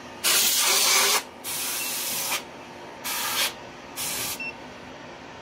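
Compressed-air duster blasting dust out of an empty battery bay: four short hissing bursts, the first about a second long and the later ones shorter.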